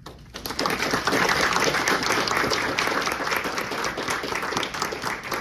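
Audience applauding: many hands clapping, starting a moment in and quickly swelling to a loud, steady applause.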